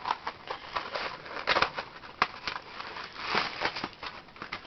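Cardboard toy-kit box and its packaging being handled and opened, with irregular rustles, crackles and taps.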